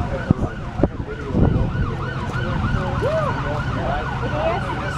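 Emergency vehicle siren in its fast yelp mode, its pitch rising and falling about four times a second, over a steady low rumble.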